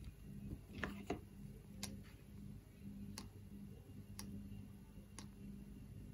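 Faint ticking, about once a second, over a low steady hum.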